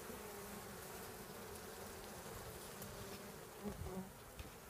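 Honeybees buzzing steadily in an open nucleus hive, a soft continuous hum of many wings, with a couple of brief soft knocks about three and a half seconds in.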